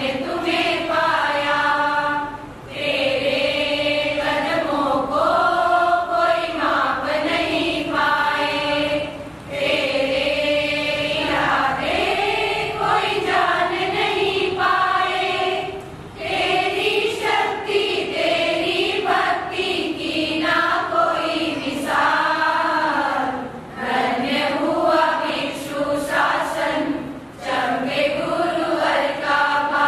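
A women's group sings a devotional geetika (tribute song) together in unison, in long phrases separated by short pauses about every seven seconds.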